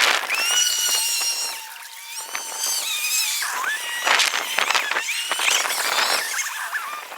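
Lakeside recording sped up about tenfold by the time-lapse, turning its sounds into quick high-pitched squeals and chirps that glide up and down, mixed with rapid clicks.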